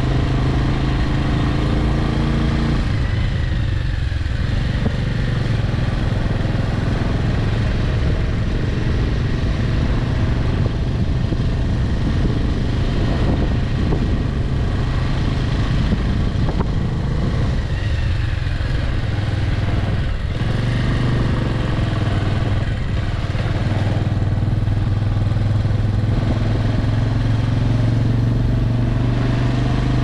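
A vehicle's engine running on the move at a steady pitch, with road and wind noise; the engine note shifts a few times.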